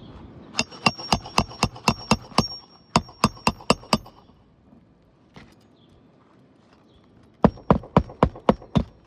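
Hammer driving roofing nails to refasten an asphalt shingle: three runs of quick blows, about four a second, with a ringing metallic note on the strikes. The first two runs come close together, and the third starts after a pause near the end.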